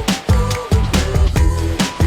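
Background music with a steady beat and heavy bass.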